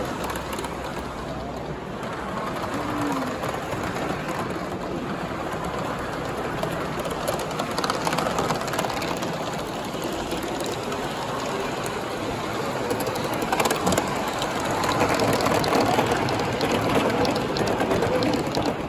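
Gauge one live steam model of a New York Central steam locomotive running with its train: a steady hissing and rapid mechanical ticking of the exhaust and running gear, with wheels clicking over the rail joints. It grows louder in the last few seconds as the train runs close past.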